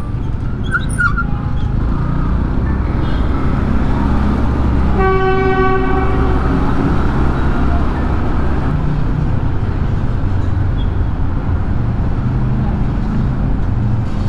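Motorcycle and traffic engine noise in a road tunnel, a steady low rumble that gets louder inside the tunnel. A vehicle horn sounds once for about a second, about five seconds in.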